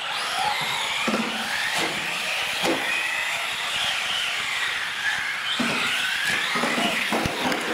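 A pack of radio-controlled UTVs racing on a concrete floor: several electric motors whining at once, their pitch rising and falling with the throttle, with short knocks scattered through as the trucks hit ramps, land and bump.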